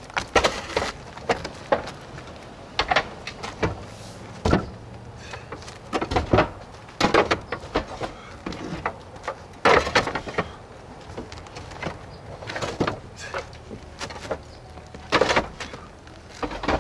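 Clay S roof tiles being picked up and set down on stacks: irregular sharp clacks and scrapes of fired clay on clay, about one or two a second.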